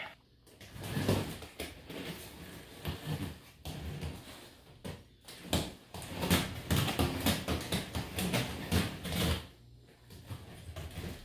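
Quad roller skates rolling and clattering on a concrete floor, with many irregular knocks as the skates strike, push off and turn.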